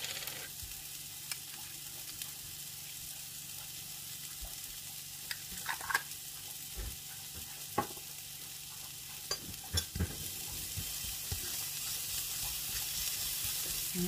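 Sliced onions sizzling in a nonstick frying pan, with a few sharp clicks of the plastic spatula against the pan. The sizzle grows louder near the end.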